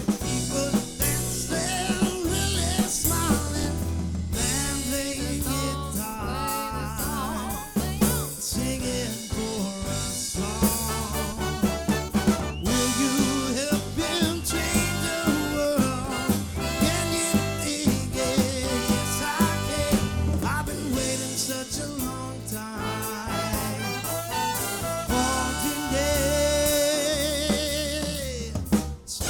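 Live soul band playing over a steady drum-kit beat, with wavering melody lines above; the music dips briefly near the end.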